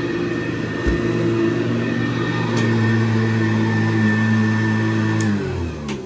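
1976 Hoover U4317 upright vacuum cleaner running with a steady motor hum and a thin high whine. About five seconds in it shuts off, and the motor winds down with falling pitch.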